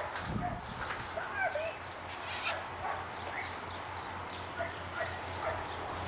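A dog giving many short, high yips and whines, excited as it waits for a thrown frisbee.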